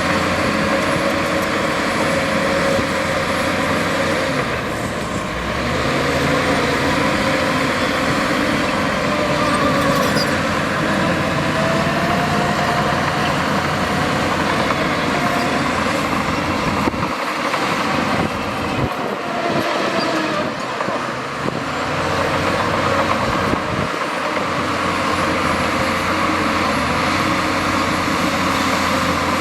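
Heavy earthmoving machinery running with diesel engine noise, the engine note rising and falling as it works.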